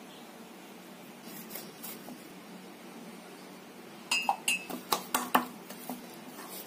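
Clinks and knocks of hands working chapati dough in a glass mixing bowl, the glass ringing briefly at some knocks. It is quiet at first, with a quick run of knocks about four seconds in.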